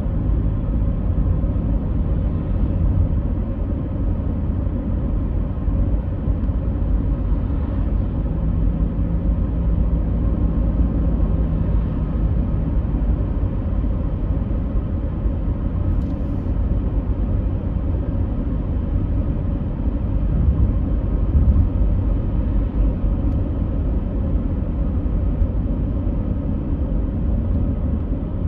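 Steady deep rumble, heaviest in the bass, with a faint hum running through it and no breaks, like the noise inside a moving vehicle.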